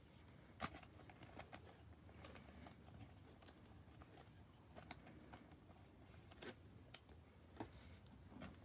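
Near silence with a scattering of faint, soft clicks and rustles: football trading cards being handled and set down on a stack.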